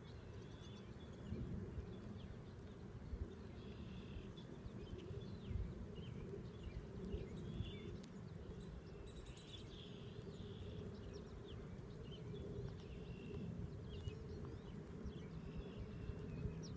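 Outdoor ambience by a pond: a steady low rumble with many short, scattered high chirping calls from small animals.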